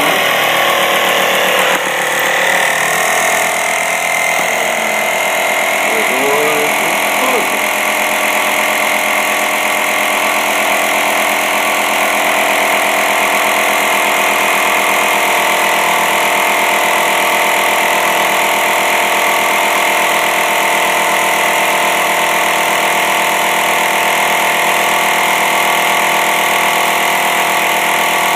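A 12-volt air compressor running steadily, supplying air to a pneumatic cylinder that is slowly closing a chicken-coop door.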